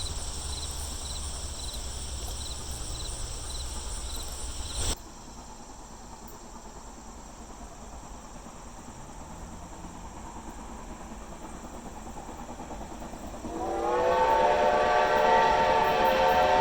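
Insects chirring steadily, with a regular chirp about every two-thirds of a second. After a sudden cut there is a quieter hiss. About 14 seconds in, a steam locomotive's chime whistle starts a long, loud, steady blast of several tones sounding together.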